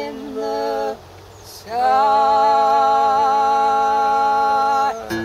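A woman and a man humming long held notes in harmony with a slight waver: a short note, a pause of about a second, then a longer note of about three seconds that cuts off near the end.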